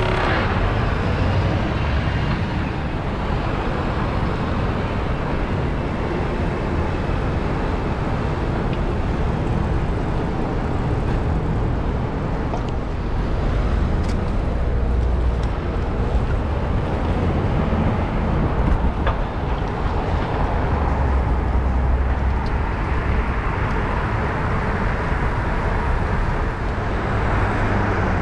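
Busy city road traffic heard from a bicycle riding among it: a steady wash of engine and tyre noise with a low rumble throughout.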